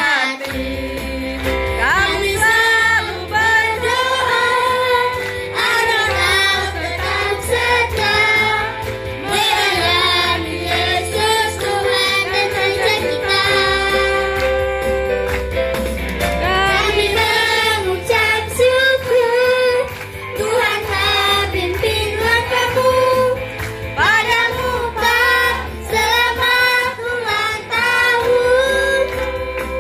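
A group of children singing a song together, over instrumental accompaniment with a steady bass line.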